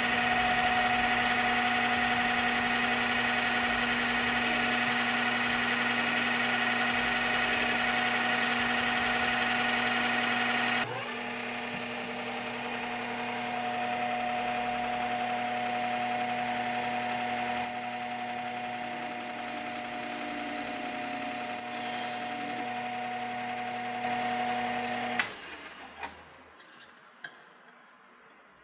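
Metal lathe running with its chuck spinning: a steady whine of motor and gears made of several steady tones, which drops in level and shifts in pitch about eleven seconds in. A loud high hiss joins it for a few seconds around twenty seconds in. The lathe shuts off about twenty-five seconds in, followed by a few light metal clicks.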